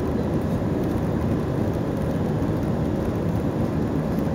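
Steady low roar of jet engines and rushing air, heard inside the cabin of an Airbus A320-family airliner climbing after takeoff.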